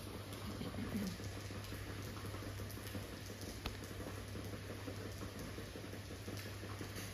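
Steady ambient hiss with a constant low electrical hum and light, irregular pattering, and a single sharp click about three and a half seconds in.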